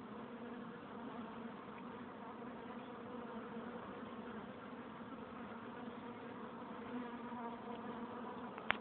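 Many honeybees buzzing in flight at the hive entrance: a steady, pitched hum from the whole swarm. There is a short sharp click right at the end.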